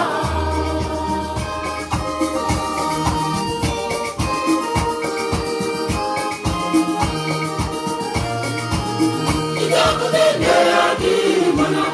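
Live choir gospel music: an electronic keyboard plays sustained chords over a steady percussion beat, with choir voices coming up strongly near the end.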